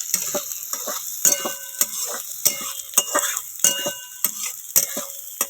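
Chopped vegetables frying in hot oil in a kadhai with a steady sizzle, while a utensil stirs them, scraping and clinking against the pan about three times a second, each stroke ringing briefly off the metal.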